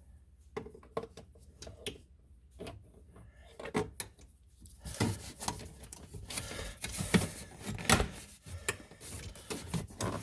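Plastic steering-column shroud being pried and pulled loose by hand: irregular clicks, knocks and plastic rubbing, scattered at first and becoming a busy, continuous rattle about halfway through.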